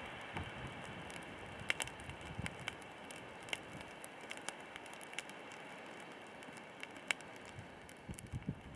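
Wood campfire crackling: scattered sharp pops and snaps over a steady low hiss.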